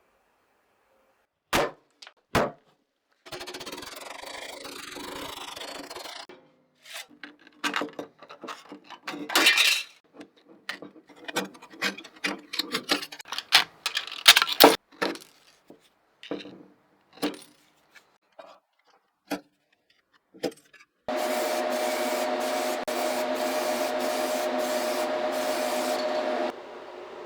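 Hand scraping and rubbing on a workpiece in irregular strokes, with two sharp clicks near the start. Near the end a steady machine runs for about five seconds, then drops to a quieter hum.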